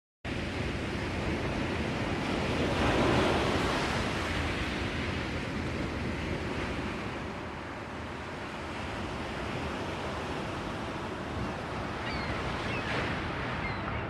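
Ocean surf: a continuous wash of waves that swells about three seconds in and then eases off. A few faint, short chirps come in near the end.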